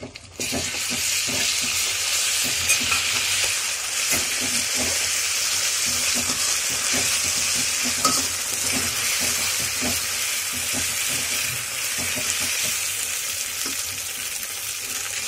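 Ginger-garlic paste and fried onions sizzling in hot oil in a metal kadai while a perforated metal spoon stirs and scrapes through them, sautéing the paste. The sizzle starts about half a second in and runs steadily, with small clicks from the spoon.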